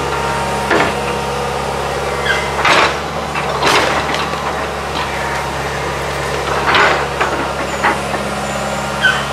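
A John Deere hydraulic excavator's diesel engine running steadily while its bucket and thumb break up a wood-frame building, with several sharp cracks of splintering wood and crashes of falling debris.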